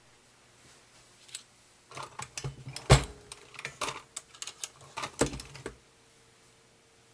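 Lee Loadmaster reloading press being cycled to push fired .40 S&W brass through a disassembled factory crimp die, ironing out Glock-bulged cases. Sharp metallic clicks and clacks of the press and the brass cases, loudest about three seconds in, with another strong clack around five seconds.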